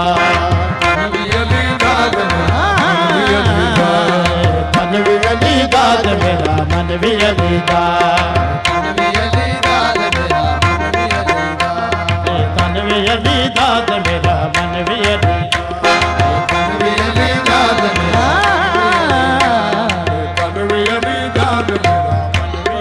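Qawwali music: tabla drumming with a harmonium holding sustained notes, and a voice singing long, wavering, ornamented melodic lines.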